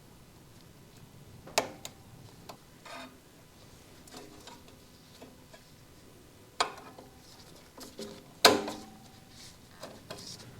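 Scattered metallic clinks and knocks of tools and parts during work on a motorcycle's front brake. Three sharper knocks have a brief ring after them, and the loudest comes near the end.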